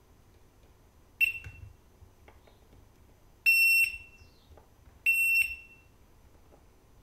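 Multimeter beeper in diode mode sounding three times, a short beep about a second in, then two longer beeps of under half a second each, as the probes touch op-amp pins that are connected: the reading drops to nearly zero.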